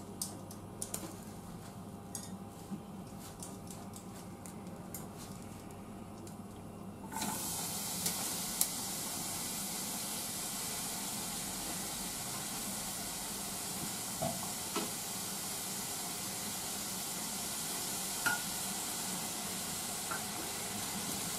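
Sliced onions and carrot dropped into a hot saucepan, starting to sizzle suddenly about seven seconds in and frying with a steady hiss, with a few light taps of chopsticks against the pan. Before that, only small handling clicks.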